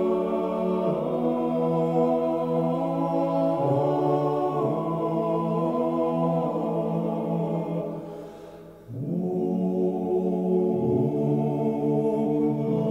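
Slow chanting voices holding long, low notes that shift pitch every few seconds, breaking off briefly about eight seconds in and starting again on a new note.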